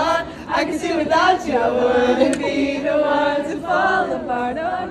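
A crowd singing and chanting together, unaccompanied, many voices at once in a sustained, wavering chorus.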